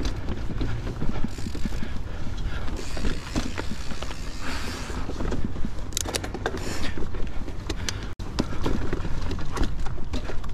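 2019 Santa Cruz 5010 mountain bike being ridden on a dirt trail: a steady rumble of wind and tyre noise, with sharp clicks and clatters from the bike a little past the middle and again near the end. The sound cuts out for an instant just after the middle.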